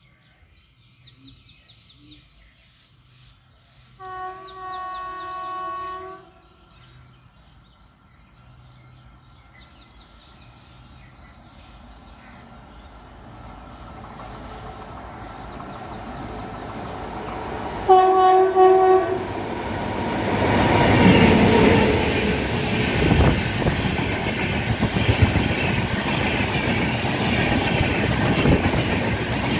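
WAP-7 electric locomotive sounding its horn twice as it approaches at speed: a shorter, fainter blast about four seconds in and a louder one about eighteen seconds in. The train's rumble then builds, and its coaches rush past with wheels clattering over the rail joints.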